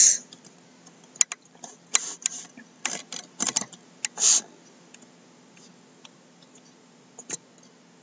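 Scattered short clicks and taps, the loudest a brief rustle about four seconds in, then a faint steady hum with one more click near the end.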